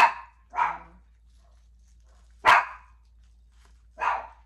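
Pet dogs barking: four short barks, unevenly spaced.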